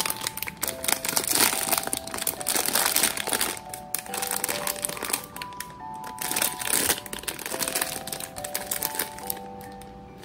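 Foil blind-box pouch crinkling loudly as hands handle it and tear it open, over background music with a light melody.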